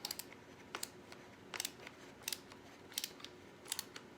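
Ratcheting screwdriver clicking as a screw is driven, in short sharp pairs of clicks about every three-quarters of a second.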